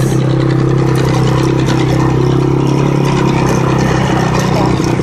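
Four-wheeler (ATV) engine running steadily under way, heard from the rider's seat; loud, holding an even pitch without revving up or down.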